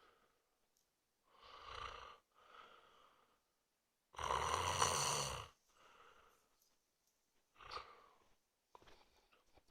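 A man snoring in his sleep: three rasping snores, each followed by a softer breath, the middle one about four seconds in the loudest and longest, with a deep rattle.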